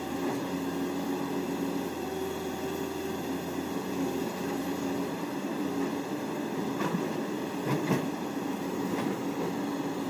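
Kobelco hydraulic excavator's diesel engine running steadily under working load, with a few short knocks about two-thirds of the way in.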